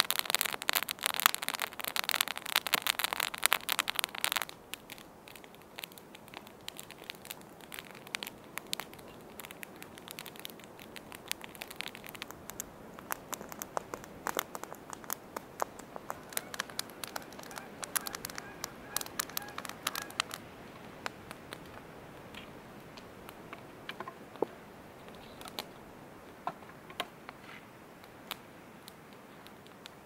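Freshly lit kindling fire crackling and popping: dense and loud for the first four seconds or so, then sparser, fainter crackles that thin out to occasional pops in the second half.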